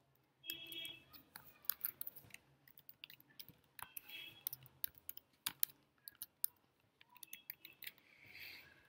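Irregular, quiet clicking of computer keys as code is typed and pasted.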